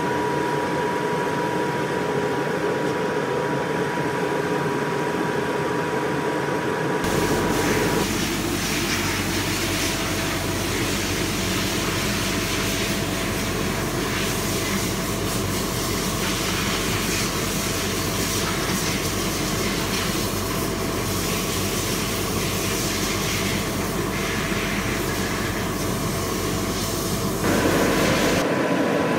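Steady machine-shop running noise from the lathe and shop machinery turning the weld-built-up motor shaft. About seven seconds in it changes abruptly to a broader hiss over a low hum, and it changes back near the end.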